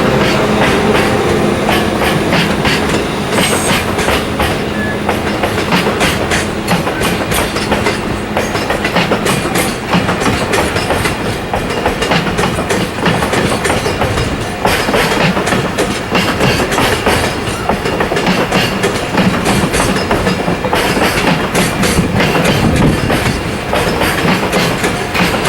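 Koki container freight wagons rolling through at low speed, their wheels clicking over the rail joints.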